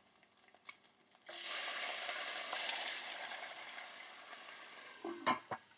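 Water poured into a hot oiled stainless-steel skillet: a sudden loud sizzle about a second in that slowly dies down as the water turns to steam around the eggs in avocado halves. A few short sharp sounds near the end.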